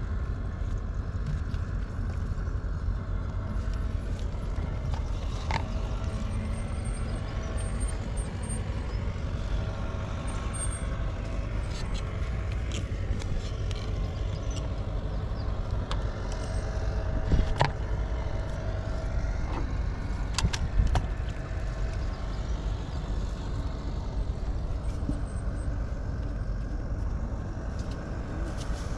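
Steady low drone of a distant engine, with faint steady tones over a rumble. A few sharp clicks stand out, the loudest about 17 seconds in.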